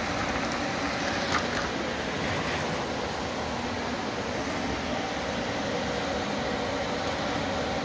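HO-scale model train running along the layout track: a steady whirring hum from the locomotive's motor and wheels on the rails. A brief click comes about a second and a half in.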